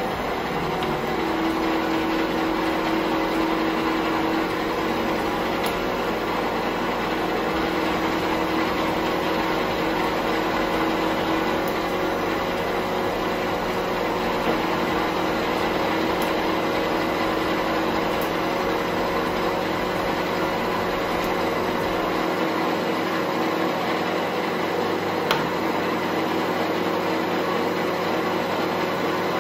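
Bernardo Profi 550 WQV bench metal lathe running with no cut, a steady mechanical hum with a few fixed tones. The lowest rumble drops away a little over 20 seconds in.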